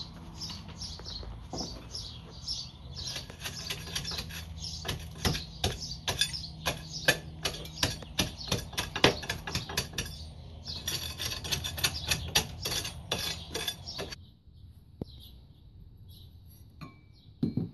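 Hammer striking a rusted steel patio post base to knock it off the 4x4 post: a fast, uneven run of sharp metallic clinks and knocks, several a second. It stops abruptly about 14 seconds in, leaving only a few faint clicks.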